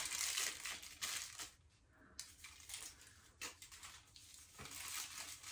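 Aluminium highlighting foil crinkling as it is folded and pressed around a section of hair, in several short rustles with a quieter gap about two seconds in.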